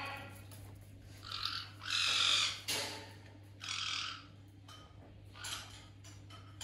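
Caique parrot giving a run of about five harsh screeching squawks, the longest and loudest about two seconds in.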